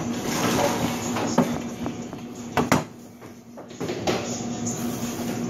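Large kitchen knife chopping on a plastic cutting board: a few scattered knocks, with a sharp double knock about two and a half seconds in, over a steady low hum.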